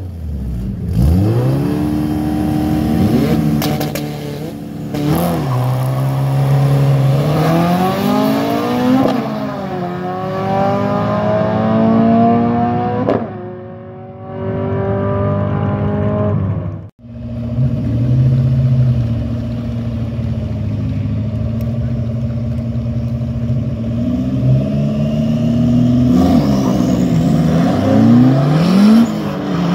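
Drag race car engine accelerating hard, its pitch climbing and dropping sharply at two upshifts. After a sudden break partway through, engines run steadily, then rev up and down in short swells near the end.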